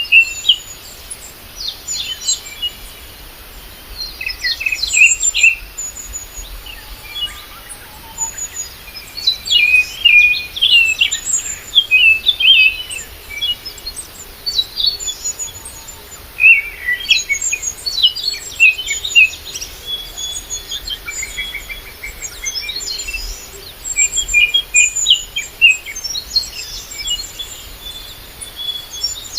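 Several small birds chirping and twittering in quick, repeated bursts of high notes, overlapping one another throughout.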